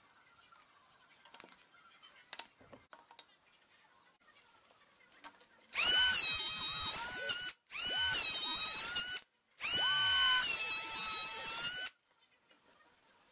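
Electric hand planer running across an olive wood board in three loud passes, each a high whine that starts and cuts off sharply. Before that, only faint taps of the wood and a combination square being handled.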